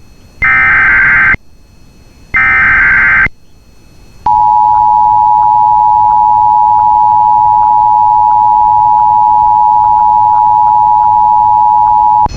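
Emergency Alert System activation: the last two of the three SAME header data bursts, short screeching digital squawks about a second apart, followed by the two-tone EAS attention signal (853 and 960 Hz). The attention signal is held steady for about eight seconds and heralds a tornado warning.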